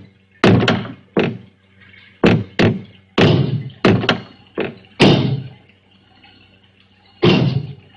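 Heavy pounding on a wooden door from the other side. There are about ten irregular blows in the first five seconds, each followed by a booming ring, then one more blow after a pause.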